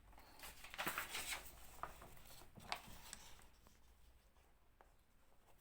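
Faint scratching and rubbing strokes of writing by hand, mostly in the first three seconds, then quiet room tone.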